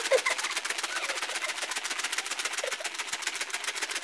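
Old copper screws rattling in a small lidded container shaken by hand in a salt-and-vinegar bath to lift their tarnish: a rapid, even rattle.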